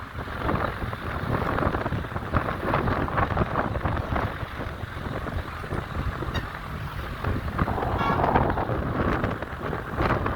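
Wind buffeting the microphone over road traffic noise, with a brief pitched tone about eight seconds in.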